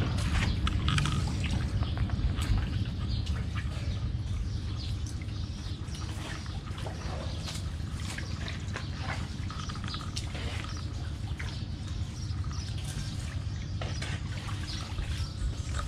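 Shallow water trickling and gurgling over muddy rocks, with many small scattered splashes and ticks.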